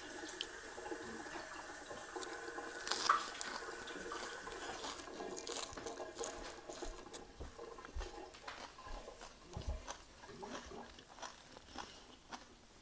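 Close-up eating: crisp crunching and chewing of a lettuce-and-herb wrap of crispy bánh xèo pancake, mostly in the second half as short crackly clicks.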